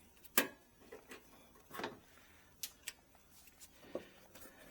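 A few sharp, scattered clicks and taps as plastic headlight fasteners and body pegs are worked loose by hand. The loudest click comes about half a second in.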